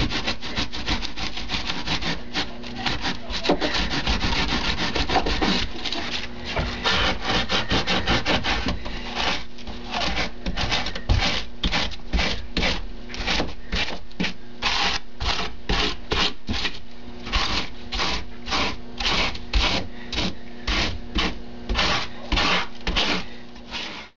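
A small hand rasp scraping and shaving rigid extruded foam, with fast, close strokes at first and then steady back-and-forth strokes about one and a half a second. It cuts off abruptly at the end.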